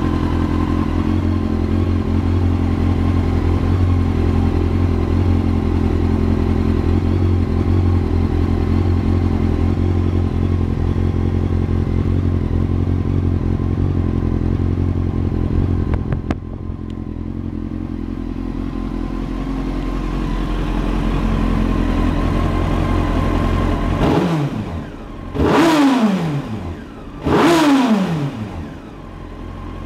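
Honda CBR929RR inline-four idling steadily through a Two Brothers Racing aluminium slip-on exhaust, with a deep, mellow note. It is a little quieter from about halfway on. Near the end it is revved twice in quick blips, the pitch rising and then falling each time.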